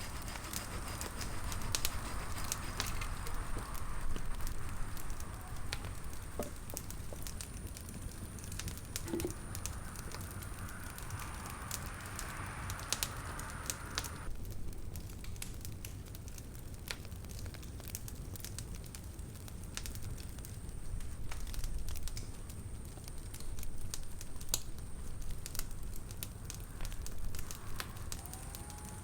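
Wood campfire crackling: scattered sharp pops and snaps over a low steady rumble.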